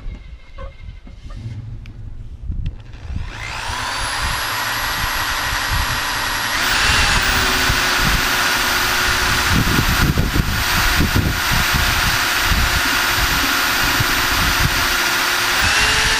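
Cordless drill boring a hole through a thin aluminium diffuser bracket. After a few light knocks, the motor spins up about three seconds in, steps up to a higher steady whine about halfway through, and eases off near the end. A low rumble from the bit biting into the metal comes a little past the middle.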